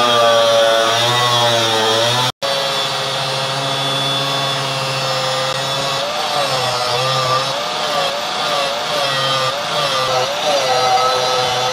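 Angle grinder with a thin cut-off disc cutting the hardened steel of an old circular saw blade, its motor whine sagging and recovering as the disc bites. The sound drops out for a moment about two seconds in; in the second half the whine dips and recovers about twice a second as the disc loads the motor.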